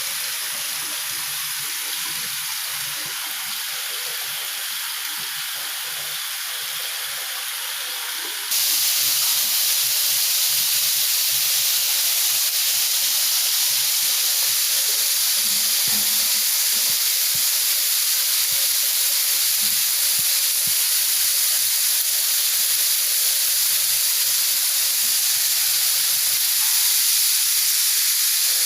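Steady hiss of water spraying under pressure from a plumbing fixture, turned up or opened wider about eight seconds in and then running loud and even.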